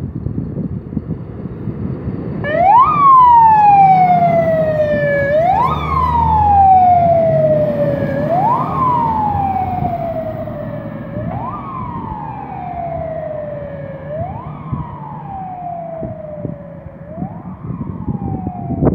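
Fire engine siren on a Scania P380 4x4 fire tender, starting about two and a half seconds in: a wail, each cycle a quick rise then a slow fall in pitch, repeating about every three seconds. It fades as the truck drives away, over the truck's engine rumble.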